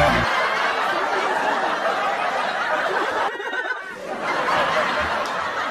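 People laughing and snickering, with a short break about three and a half seconds in.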